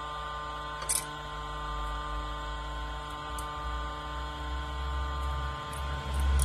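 Hydraulic press running with a steady motor hum as its plate slowly crushes a wire-mesh cylinder. There is one sharp click about a second in and a few faint ticks, and a deeper rumble builds near the end as the mesh collapses flat.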